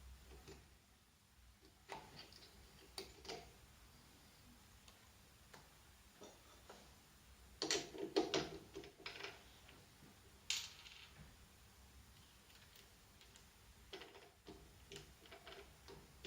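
Scattered light clicks and knocks of small hard objects being handled, with a short burst of clattering about eight seconds in and a single sharp knock a couple of seconds later.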